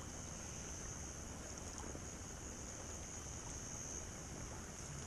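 Night insects calling in one steady, unbroken high-pitched trill over a low, even background hiss.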